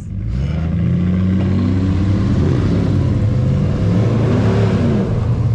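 Two truck engines revving hard under load in a truck-against-truck pull, their pitch rising and falling as the throttle is worked over a steady low running note.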